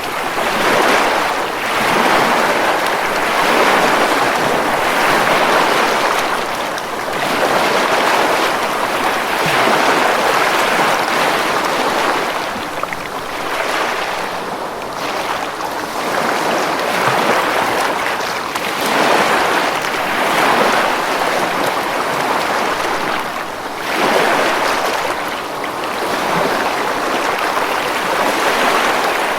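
Ocean waves breaking on a beach: a continuous rush of surf that swells and ebbs every few seconds.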